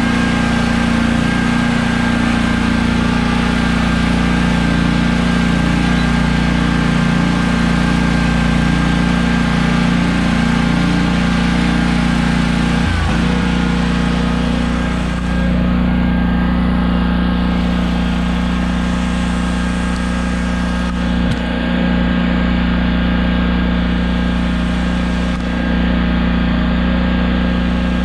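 Engine of a commercial stand-on mower running steadily at working speed while mowing, with brief small dips in level.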